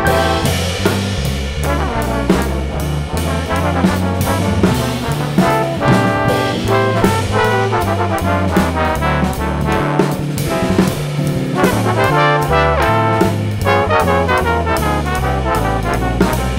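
Big band jazz with the trombone section playing in harmony over a bass line that moves note by note and drums keeping time.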